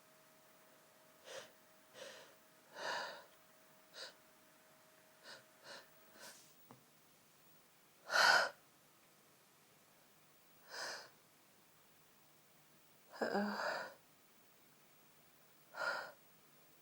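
A person in a sneezing fit: a run of about a dozen short sniffs, gasping in-breaths and sneezes. The loudest comes about eight seconds in, and a longer cluster comes about thirteen seconds in.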